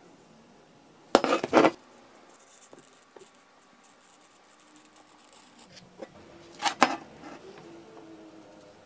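Steel axe head clinking and clattering against the workbench as it is handled: a quick cluster of sharp metallic knocks about a second in, then two more sharp clinks a few seconds later.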